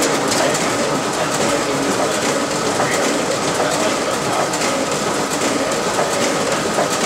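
RISO 9050 production printer running a duplex print job: a steady mechanical clatter of sheets feeding through the rollers and finisher, with faint repeated clicks.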